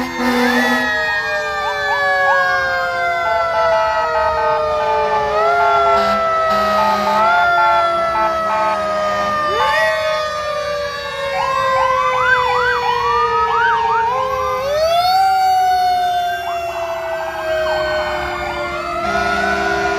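Fire engine sirens wailing as the trucks pass, several at once. One wail keeps winding slowly down in pitch and is pushed back up every few seconds, while others sweep quickly up and down over it about halfway through.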